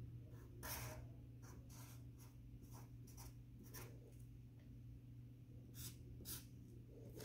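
Faint strokes of a Sharpie permanent marker drawing on paper: a series of short, separate scratchy strokes.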